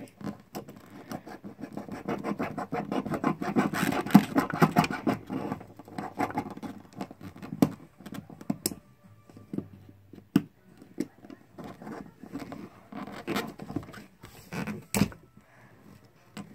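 Master Lock combination padlock being scraped and pried at to break it open. Rapid scratching and clicking is densest over the first half, then thins to scattered clicks and a couple of sharp knocks.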